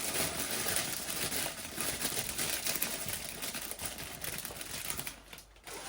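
Mixed vegetables being tipped into a pan: steady crinkling and a fine, rapid rattle of small pieces, dying away about five seconds in.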